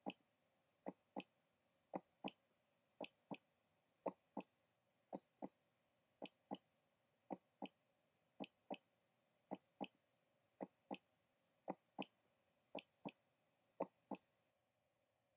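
Heartbeat sound effect: quiet, evenly paired lub-dub thumps, a little more than one pair a second, steady throughout.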